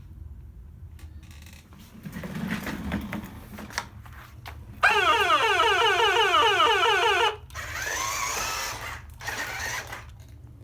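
Toy fire truck's electronic siren sounding a fast, repeating yelp, about four sweeps a second, for two and a half seconds midway before cutting off sharply, then a fainter warbling tone. A brief stretch of small-motor whir comes before the siren.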